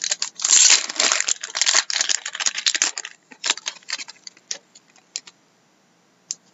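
Foil wrapper of a hockey card pack being torn open and crinkled for about three seconds, then scattered light clicks and rustles for a couple of seconds as the cards are handled.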